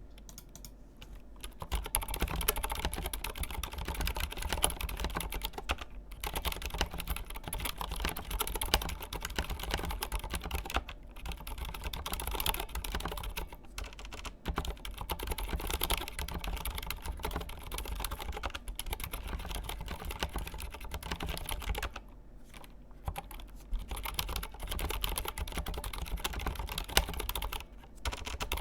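Continuous typing on a mechanical keyboard fitted with Cherry MX Silent Red linear switches and translucent ABS keycaps: rapid, dampened key presses with a few brief pauses, beginning about a second and a half in.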